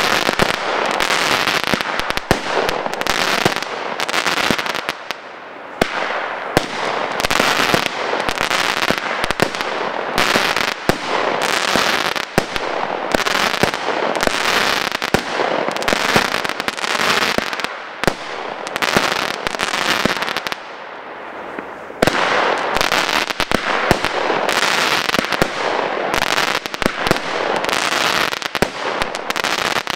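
Weco Fata Morgana consumer firework battery firing shot after shot in quick succession, each bursting into crackling stars, with a dense hiss of crackle. It eases off briefly about two-thirds of the way through, then picks up again and stops at the end.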